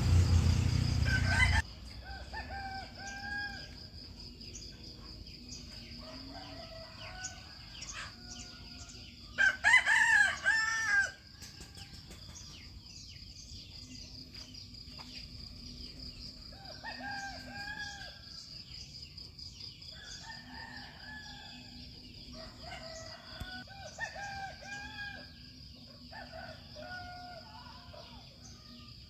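A rooster crows loudly once, about ten seconds in, over a steady high drone of insects and repeated short calls of other birds. Loud noise, most likely a passing vehicle, cuts off sharply about two seconds in.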